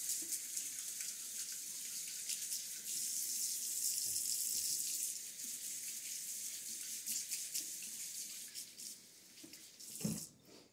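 Kitchen faucet running into the sink while hands are washed under it, a steady splashing hiss that is shut off about ten seconds in.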